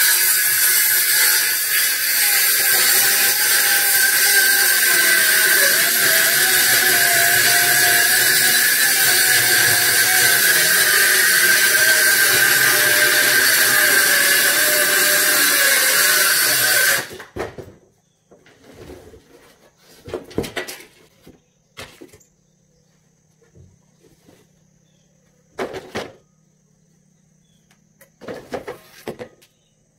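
Handheld circular saw cutting through a plywood sheet, its motor whine wavering under load, running for about seventeen seconds and then stopping abruptly. After it stops, a few scattered knocks and clatters follow.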